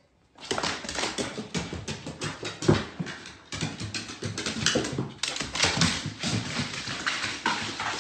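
A bull terrier's claws and paws clattering and scrabbling on wooden stairs as it runs and jumps down, a quick, irregular run of taps and scuffs with one heavy thump about two and a half seconds in.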